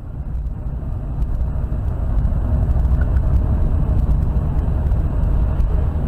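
Steady low rumble of a car driving at highway speed, road and engine noise heard from inside the cabin by a dashcam. It grows louder over the first second or so and then holds.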